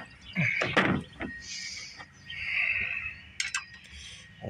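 A few knocks, then a scraping rub, as a McCulloch H1500 portable generator's rotor is turned over by hand. It does not roll free, which the owner suspects is a frozen starter clutch.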